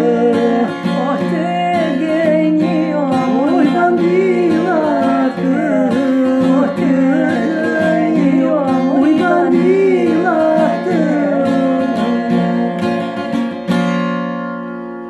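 A man and a woman singing together to a strummed acoustic guitar. Near the end the voices stop and the last guitar chord rings on, fading out.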